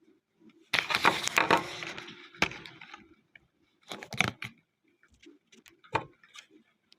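Blind-box packaging being handled and opened: a loud stretch of crinkling and crackling about a second in, lasting about two seconds, then two shorter rustles with clicks.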